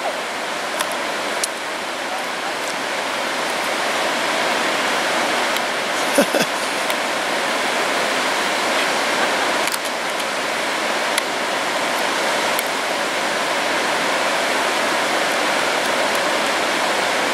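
Steady rushing of running water, with a few faint ticks over it.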